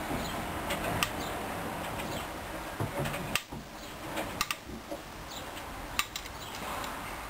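Hoover Dyn 10124DP washing machine in its rinse cycle, the drum turning through the wash with a steady rushing noise and scattered sharp clicks and knocks. The level drops briefly about halfway through.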